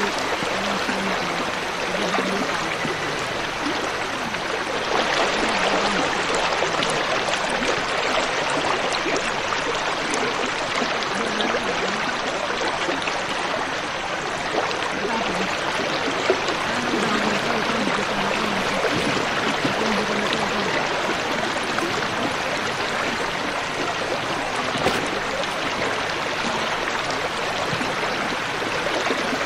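Shallow river water rushing steadily over rocks and around the wheels of a car crossing the river slowly.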